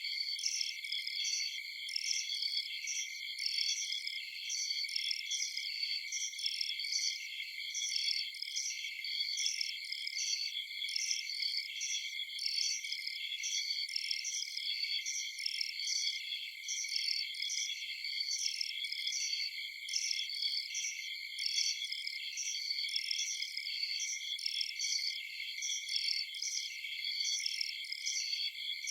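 Night chorus of crickets and other insects: a dense, steady, high-pitched trilling layer with a regular pulsing chirp repeating throughout.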